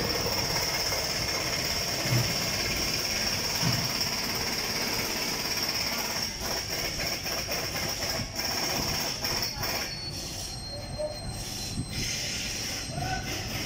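Toyota engine's belt-driven pulleys running with a steady high-pitched squeal over the engine noise, the kind of squeal that points to a dry pulley bearing or a slipping belt. There are a few dull knocks along the way.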